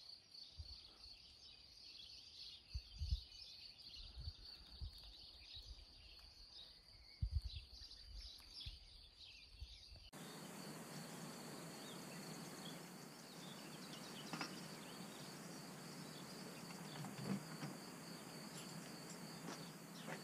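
Faint countryside ambience: a steady high insect trill with scattered bird chirps. There are a few low wind thumps on the microphone in the first half. About halfway through, the background changes to a broader, even hiss with a couple of light clicks.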